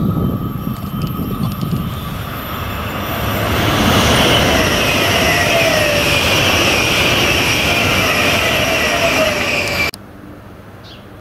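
SBB ICN electric tilting train (RABDe 500) approaching and passing close at speed: wheel and running noise builds to a steady loud rush with a steady whine through it. It cuts off abruptly about ten seconds in.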